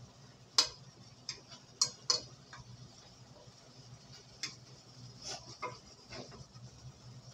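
A spoon knocking and scraping against the side of a pot while stirring shrimp in sauce: a handful of sharp, uneven clinks, the loudest about half a second in and two close together around two seconds. A faint steady low hum runs underneath.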